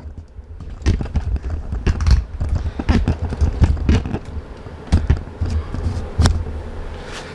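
Irregular knocks, clicks and scrapes of a plastic front bumper cover being lifted and worked into place on the car.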